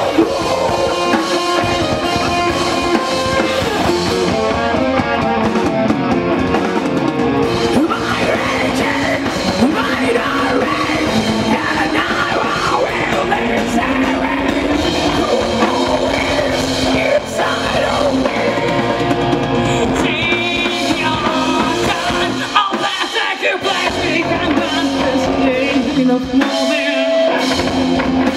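Live rock band playing at full volume: female lead vocals over distorted electric guitar, bass guitar and a drum kit.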